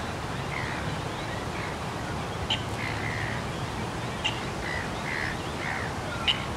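Waterbirds calling over and over in short calls, over a steady low rumble of distant traffic. Three short sharp clicks stand out, about two and a half, four and six seconds in.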